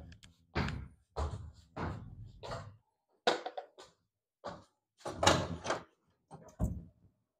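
An irregular series of dull thumps and knocks, about eight in all, the loudest about two-thirds of the way through.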